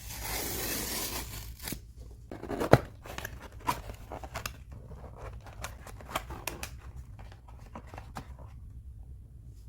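Packaging being opened and handled. A rustling, tearing stretch comes first, then a run of light taps and clicks with one sharp knock a little before the three-second mark.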